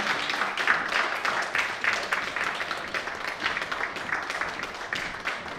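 A small audience applauding, the clapping gradually dying down.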